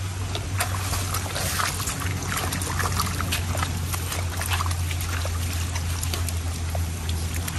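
Steady trickling, running-water noise with many scattered short ticks and rustles.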